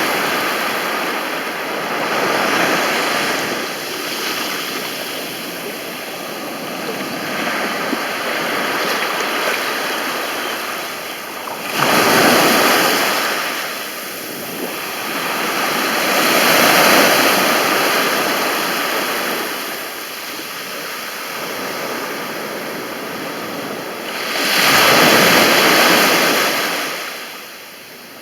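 Mediterranean sea waves breaking on a beach: a continuous rush of surf that swells and ebbs, with a sharper, louder break a little before halfway and another near the end.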